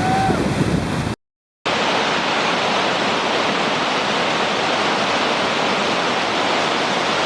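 Steady rushing of waterfall white water, broken by a half-second drop to silence just over a second in.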